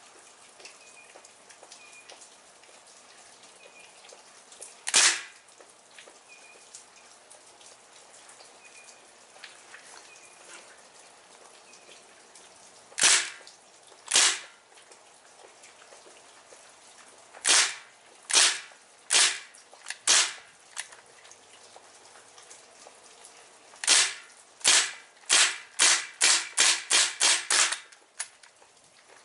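Crosman R1 CO2-powered BB gun firing on semi-auto: a sharp crack for each trigger pull, first single shots a few seconds apart, then four quicker shots, then a fast string of about ten shots near the end.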